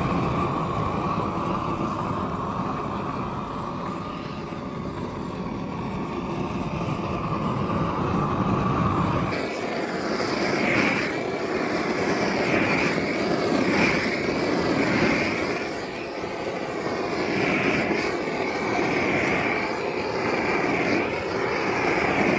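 Propane roofing torch running with a steady rushing flame as it heat-shrinks plastic sheeting. About nine seconds in, the sound switches abruptly to a higher-pitched, sped-up version with regular swells about every second and a half as the torch sweeps back and forth.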